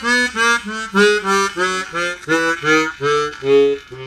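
A chromatic harmonica playing a quick run of short notes that works its way down to its lowest note, a low C an octave below the usual chromatic's bottom C, held near the end.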